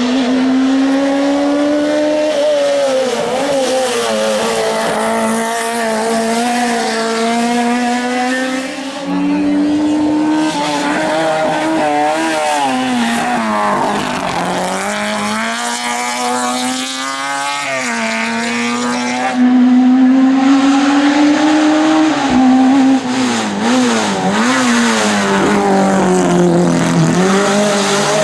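The Citroën AX A 1/2 hill-climb car's high-revving engine, tuned to about 155 hp at 9500 rpm, driven hard. Its pitch climbs steadily and drops sharply again and again as it shifts gear and slows for corners, with quick revving blips on the way down.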